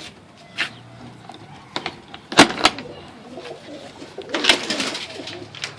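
Pigeons cooing in low, wavering calls, with several sharp clicks and knocks among them; the loudest knocks come about two and a half and four and a half seconds in.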